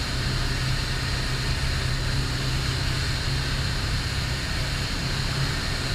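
STOL CH 750 light aircraft's piston engine and propeller running steadily, a constant low drone under a broad rushing noise.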